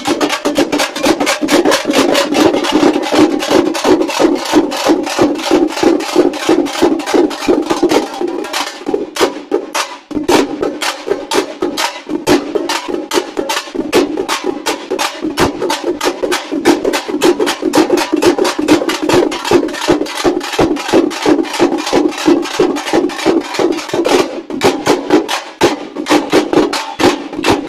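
A band of dappu (tappeta) drums and other stick-beaten drums played together in a fast, driving rhythm, several strokes a second. The playing thins briefly about nine seconds in, then picks up again.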